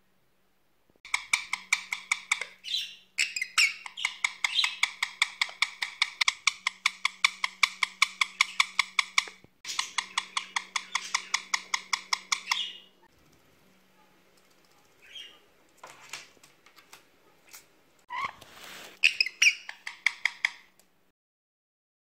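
Indian ringneck parakeet calling in a long, fast run of sharp repeated calls, about five a second, for over ten seconds; after a pause with a few faint calls, another short burst of calls comes near the end.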